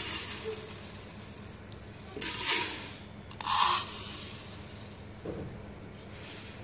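Dry raw rice grains poured from a steel tumbler into a plastic measuring cup and tipped into a stainless steel pot: a hissing rush of grains, fading after the start, with two short louder pours about two and a half and three and a half seconds in.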